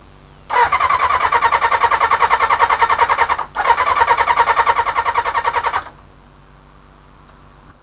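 Electric starter cranking the 1993 Suzuki Bandit 400's engine in two tries, about three seconds and then two, a fast even pulsing that stops without the engine catching: a no-start.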